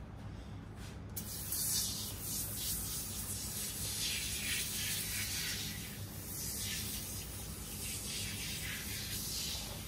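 Scrubbing a dirty tackle box by hand to clean off grime: a run of uneven scrubbing strokes that starts about a second in and keeps going.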